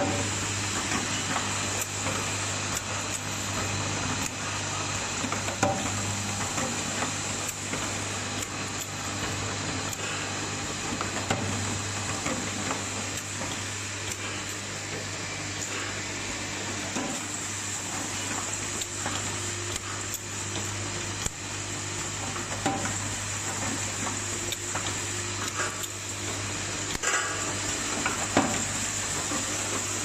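Automatic assembly machine for plastic medical connectors and caps running: a steady hum under a constant clatter of small plastic parts and irregular clicks and clacks of the assembly mechanisms.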